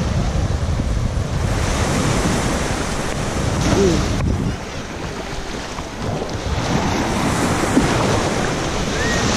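Small surf waves washing up onto a sandy beach at the shoreline, the hiss swelling and easing as each wave comes in, with wind rumbling on the microphone.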